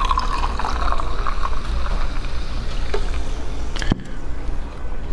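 A drink poured from a can into a glass mug, splashing and trickling for about two seconds and then fading. A single sharp click comes about four seconds in, over a steady low hum.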